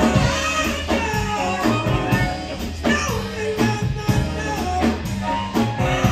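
Live band playing a rock-and-roll blues: electric guitar, harmonica blown into a hand-cupped microphone, upright bass and drums, with a woman singing over a steady beat.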